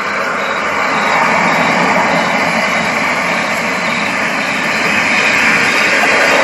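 A loud, steady rushing noise that swells a little after the middle.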